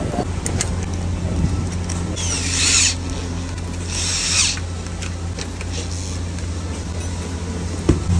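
Cordless drill driving a screw into an exhaust fan motor's mounting bracket in two short whirring bursts, about two seconds in and about four seconds in. A steady low hum runs underneath, with a few sharp clicks of parts being handled.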